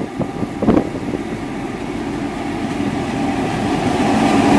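V/Line N class diesel-electric locomotive hauling a passenger train into a station platform, its engine and wheels growing steadily louder as it draws level. A brief sharp knock sounds under a second in.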